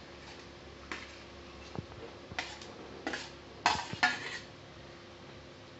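A metal plate scraping and clinking against the rim of a kadhai as stuffed pointed gourds are pushed off it into the gravy: about five short scrapes and clinks, most of them in the second half.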